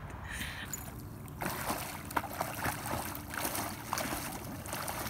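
Splashing and churning of lake water from a swimmer's kicking feet, starting about a second and a half in after a quieter stretch.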